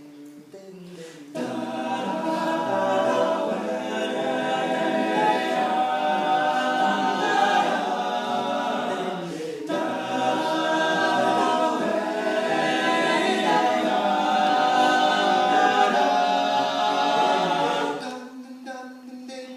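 Male a cappella group singing in close harmony without words, with a low vocal bass line under the chords. The singing breaks off briefly about halfway and fades near the end.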